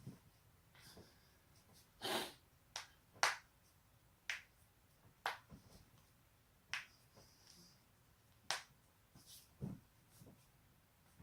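Neck joints cracking: a series of sharp pops, about eight, spaced irregularly a second or so apart, with a couple of softer dull thumps near the end.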